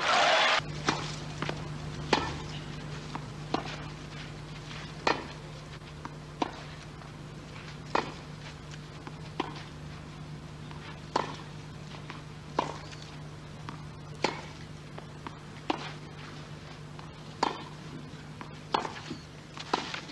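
Tennis ball struck back and forth by racquets in a long baseline rally on a clay court, a sharp pock about every one and a half seconds, with fainter ball bounces between. A steady low hum runs underneath.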